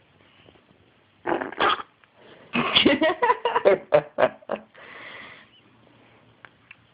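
A baby's short, loud vocal sounds: hiccups and grunts, two at first, then a quick run of about eight more, followed by a brief softer rushing noise.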